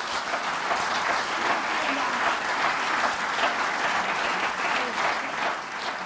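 A roomful of people applauding, a dense, steady clapping that eases slightly near the end.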